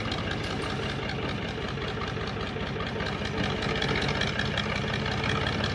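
Farm tractor's diesel engine running steadily at low revs as the tractor moves slowly with its trolley, a little louder about halfway through.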